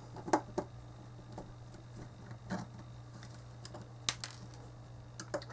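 A few faint clicks and taps of a small screwdriver on the sheet-metal chassis of a car stereo's CD mechanism as tiny side screws are undone, the sharpest about four seconds in.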